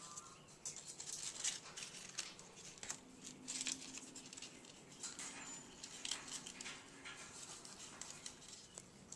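African grey parrot tearing and chewing a crumpled paper toy with its beak: irregular crackling and rustling of paper with scattered clicks.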